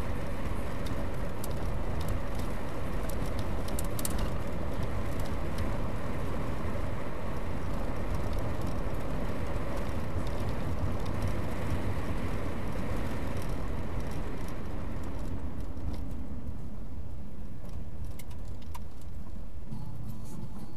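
Steady road and engine noise inside a moving car at about 40 mph, with a few light ticks from the road early on. The noise softens about three-quarters of the way through as the car slows down.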